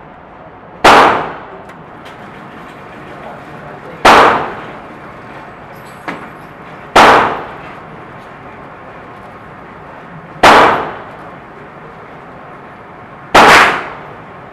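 Five single gunshots fired slowly, about three seconds apart, each ringing out briefly in the echo of an indoor shooting range.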